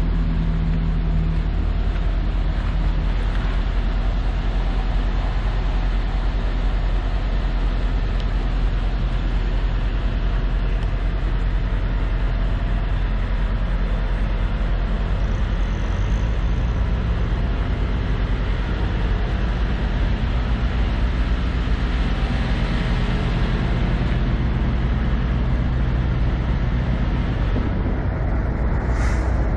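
Heavy-truck diesel engine idling steadily, a low even rumble.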